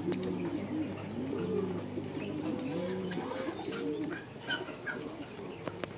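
Several pigeons cooing over one another in a steady chorus of low rising-and-falling coos, with a few short higher chirps from small birds near the end.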